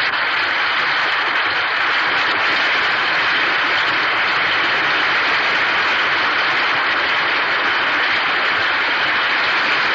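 Studio audience applauding, a steady, even wash of clapping on a 1939 radio broadcast recording.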